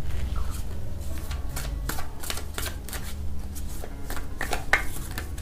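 A tarot deck being shuffled by hand, a quick irregular run of card clicks and flicks as the cards drop through her fingers.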